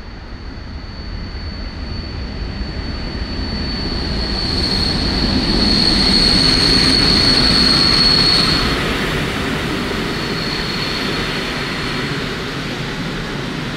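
PKP Intercity passenger train rolling past behind its locomotive. The rumble and rattle of the wheels build as it draws near and are loudest as the locomotive goes by, about six to eight seconds in, with a steady high whine. The coaches then keep rolling past at a slightly lower level.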